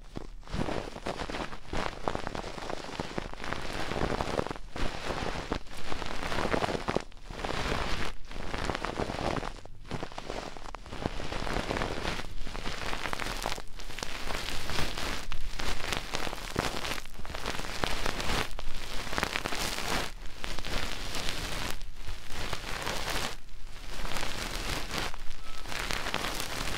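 Fingers rubbing and tapping quickly on the silicone ear of a binaural microphone, the ASMR 'helicopter' trigger: a close, dense scratchy rush that breaks off for a moment every second or two.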